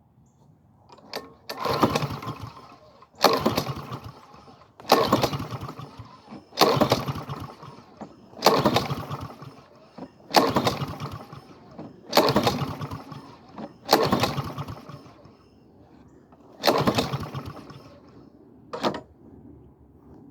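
Honda lawn mower's recoil starter being pulled about nine times, roughly every two seconds, the engine spinning over briefly with each pull but not catching and running.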